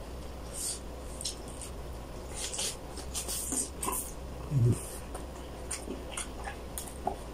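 Close-up wet chewing and lip-smacking of a man eating saucy chicken by hand: scattered short smacks and clicks, with a short low hum from him about four and a half seconds in.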